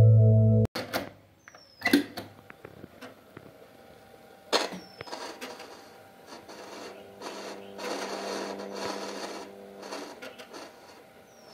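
Music playing from a Philips AM140 cassette recorder cuts off abruptly under a second in, followed by a few sharp clacks of its piano-key transport buttons and a faint steady motor hum with tape hiss.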